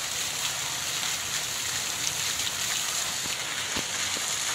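Steady splashing and rushing of garden water fountains into a pond, with a couple of faint knocks near the end.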